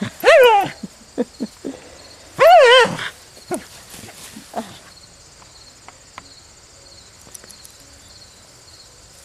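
A dog giving two high-pitched, wavering whining yelps during rough play, one right at the start and another about two and a half seconds in, with a few short softer noises in between. Steady cricket chirring underneath.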